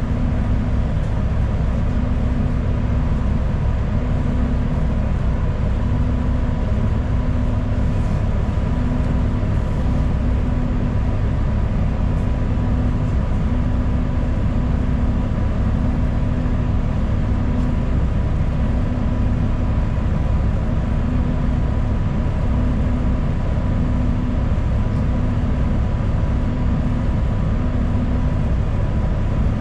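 Steady interior noise of a city transit bus: a low engine and road rumble with a faint, steady high tone running through it.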